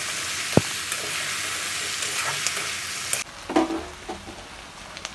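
Taro stolons and long beans sizzling in oil in a wok as they are stirred, with one sharp knock of the spatula against the wok about half a second in. The sizzle cuts off abruptly about three seconds in.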